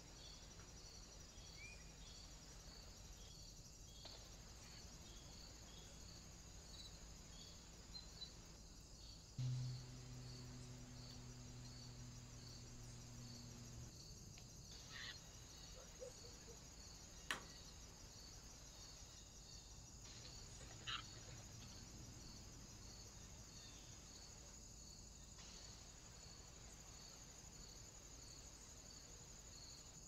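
Faint, steady insect chirping in a regular pulse over a low background hiss. A low hum starts abruptly about nine seconds in and lasts some four seconds, and a single sharp click sounds a few seconds after it.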